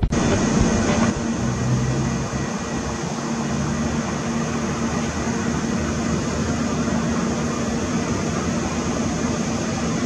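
Deep steam whistle of the sternwheel steamboat Natchez blowing one long, steady blast, breathy with the rush of steam.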